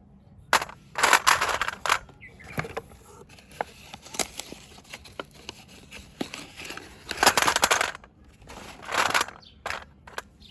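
Irregular bursts of rustling and crackling, with scattered small clicks between them.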